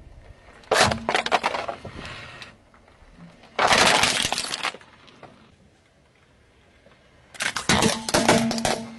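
A car tyre rolling over and crushing a green plastic Hulk face mask, which cracks and crunches in two bursts of crackling. Near the end a third burst of cracking comes as the tyre presses down on another object.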